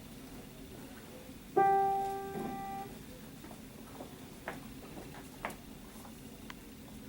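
A single piano note struck about a second and a half in and left to ring and fade, with a soft lower note just after it: the starting pitch given to an a cappella choir before it sings. Then a few faint clicks and shuffles.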